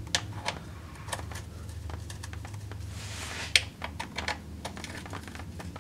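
Scattered small metallic clicks of a socket on an extension as the transmission oil pan's rear bolts are turned loose by hand, with one louder click about halfway through.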